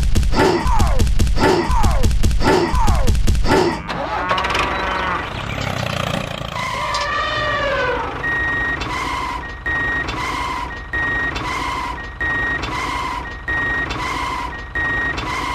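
A repeating falling electronic tone, about two a second over a deep bass rumble, then some gliding tones. From about eight seconds in, an electronic reversing beeper sounds steadily, a bit more than once a second, like a vehicle backing up.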